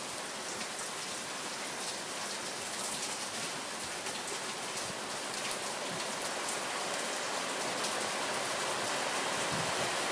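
Steady rain falling on wet pavement and parked cars, a continuous hiss flecked with the ticks of single drops, growing a little louder toward the end.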